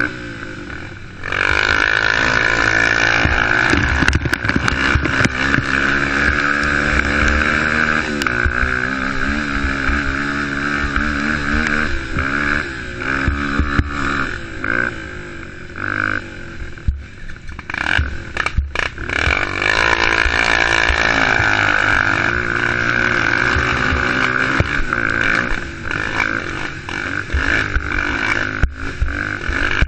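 Youth race quad's engine revving hard, its pitch rising and falling over and over with the throttle, with knocks and rattles from the ride over rough ground. The engine picks up sharply about a second in and eases off briefly past the middle.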